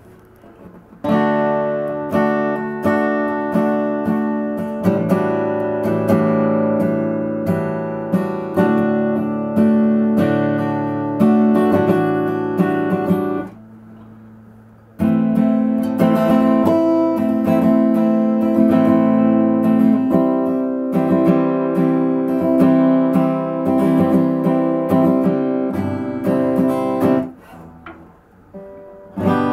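Steel-string acoustic guitar played with chords and picked notes, picked up by a compact camera's built-in microphone. Playing starts about a second in, breaks off for about a second and a half around the middle, then resumes and stops near the end.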